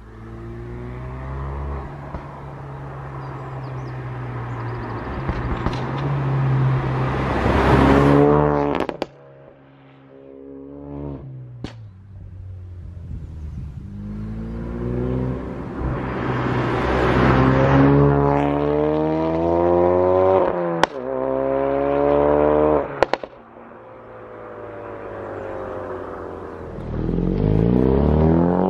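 Ford Focus RS Mk3 with a Scorpion cat-back exhaust, its turbocharged four-cylinder revving harder and harder under acceleration. Sharp pops and bangs crack from the exhaust on lift-off. This happens twice, and a third run starts building near the end.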